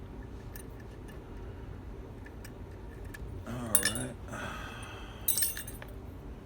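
Small metal lock parts clinking and rattling as a padlock is handled. There are scattered light clicks, with louder jangles a little before four seconds in and again at about five and a half seconds.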